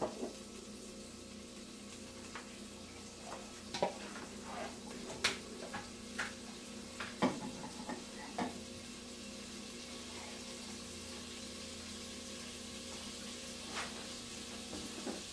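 A stick of butter melting in a pot over a gas flame, with faint scattered sizzles and crackles over a steady low hum.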